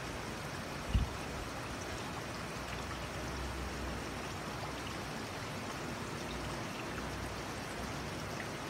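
Steady rushing trickle of circulating aquarium water, with a brief low thump about a second in.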